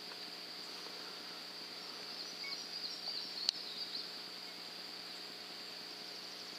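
Steady high-pitched drone of insects, with a flurry of short chirps from about two to four seconds in and a single sharp click about three and a half seconds in.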